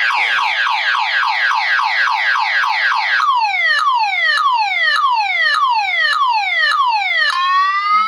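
Car alarm ringtone played through a phone's speaker. The alarm cycles through its siren patterns: first rapid falling chirps about five a second, then slower falling sweeps about two a second from about three seconds in, and a rising whoop near the end.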